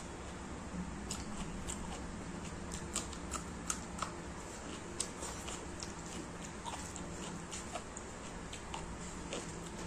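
Close-up eating sounds of fatty pork curry and rice eaten by hand: wet chewing and mouth smacks, heard as many short clicks, a few sharper ones between about three and five seconds in, over a steady low hum.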